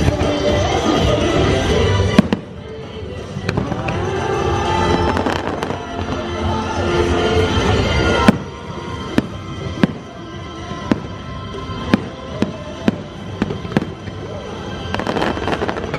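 Fireworks bursting over a music soundtrack: sharp bangs about two seconds in and again at about eight seconds, then a string of separate cracks every second or so.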